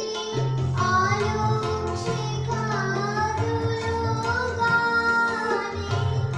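A young girl singing a song, accompanied by sustained keyboard chords and regular hand-drum strokes.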